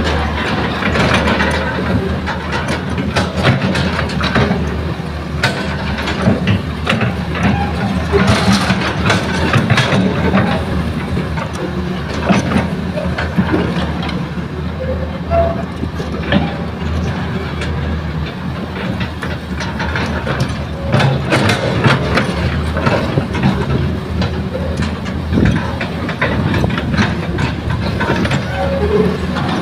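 Excavator's diesel engine running steadily under load, with repeated clanks and knocks from the bucket and the soil being loaded into a dump truck.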